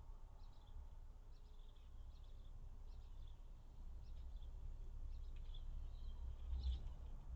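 Small birds chirping in short, repeated calls, about one to two a second, over a faint low rumble.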